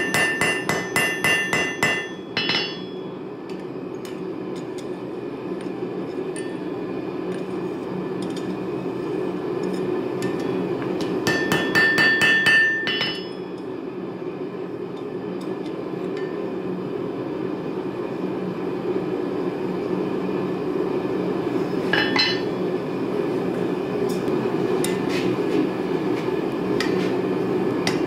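Hand hammer striking a hot railroad spike on a steel anvil, each blow ringing. There is a quick run of blows, about four a second, at the start, another burst about halfway through, a couple of light metallic clinks later, and blows again right at the end, over a steady low hum.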